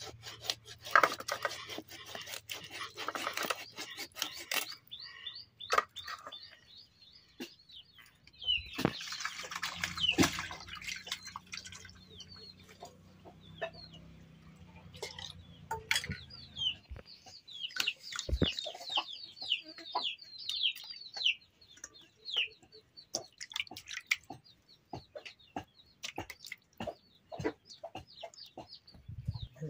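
A knife cutting and scraping raw fish over steel plates: many short clicks, with longer scraping bursts near the start and about nine seconds in. Birds chirp in rapid runs about two-thirds of the way through.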